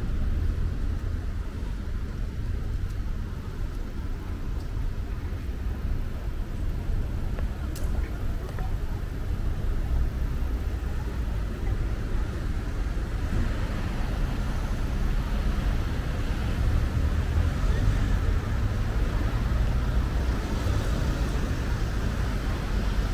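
City street traffic: a steady low rumble of cars on the road, growing louder in the second half.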